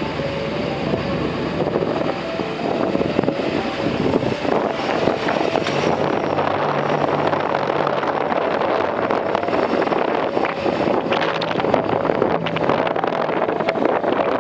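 A vehicle moving along, with steady road and wind noise on the microphone.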